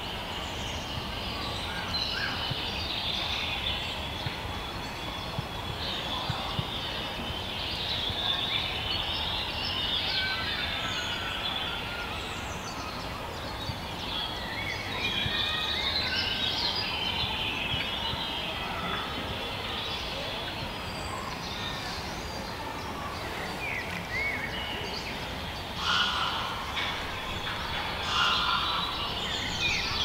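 Songbirds chirping and singing throughout, many short high calls overlapping, over a steady low background rumble. Two louder calls stand out near the end.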